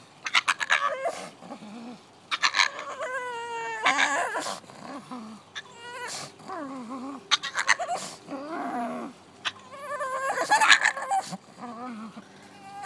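A pug making a string of strange, wavering vocal calls that slide up and down in pitch, one long call falling steadily, broken by quick rattling bursts.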